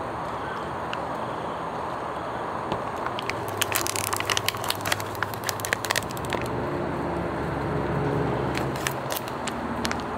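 Foil and plastic food packaging from a self-heating rice meal crinkling and crackling as it is handled and torn open, with a quick run of sharp crackles in the middle. A steady low background rumble swells for a few seconds near the end.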